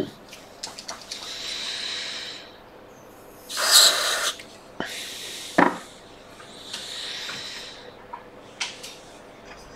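Freeze spray hissing from an aerosol can in three short blasts, the second one, a little over a third of the way in, the loudest, with a few clicks and a sharp knock between them. The spray is frosting a shorted logic board so the heating component shows itself by thawing first.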